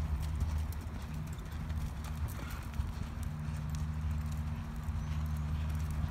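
Hoofbeats of a sorrel mare loping on soft arena dirt under a rider, over a steady low hum.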